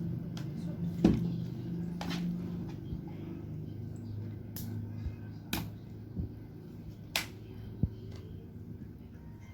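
Sharp, irregular plastic clicks and taps from handling an RJ45-terminated UTP network cable and a cable tester, as the connectors are plugged into the tester for testing; the loudest click comes about a second in.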